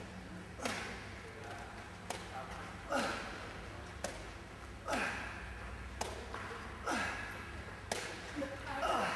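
A ball passed back and forth between two people, about eight sharp slaps and thuds as it is thrown and caught, roughly one a second, echoing in a large hall.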